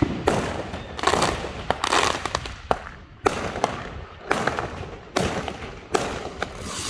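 Fireworks going off: a string of loud bangs about once a second, each trailing off in crackle, with sharp single cracks in between.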